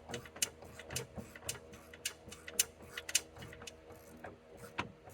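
Hand ratchet clicking in short, uneven runs as the 5 mm bolt holding the exterior door handle is worked loose inside the door.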